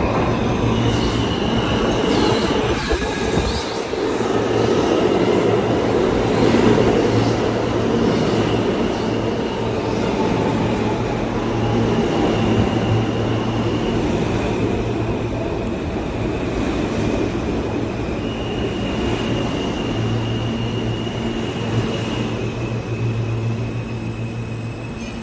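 New York City Subway train of R160-series cars pulling into a station, with a steady rumble of wheels on rail and a low hum, and stretches of high-pitched squeal that come and go. The noise eases off near the end as the train slows.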